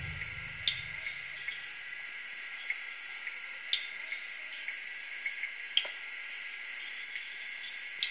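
Insect chorus, crickets chirping: a steady high pulsing trill at about three pulses a second over a fainter steady tone, with a few brief faint clicks scattered through it.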